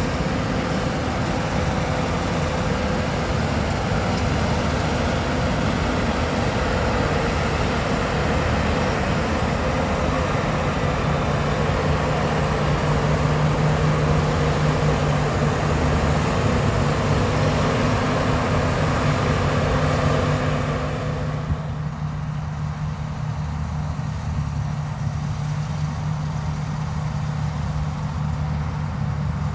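A vehicle engine running steadily with a low hum. A louder, busier layer of noise drops away about 21 seconds in, leaving the engine hum.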